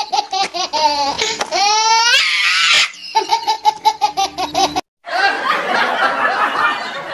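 High-pitched laughter in a fast run of repeated 'ha' sounds, rising into a squeal about two seconds in, then laughing again. After a brief cut near five seconds, a denser jumble of laughter follows.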